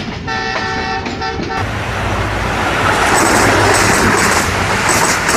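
Intro sound effects: a few short blasts of a multi-tone horn in the first second and a half, then a loud rushing noise with a low rumble that swells and cuts off abruptly.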